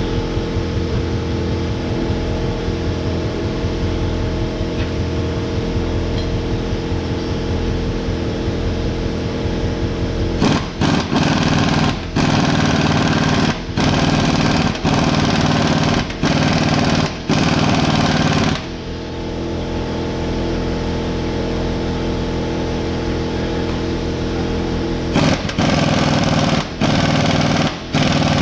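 Pneumatic air hammer rattling in repeated bursts of a second or two, driving out old suspension bushings, over a steady machine hum.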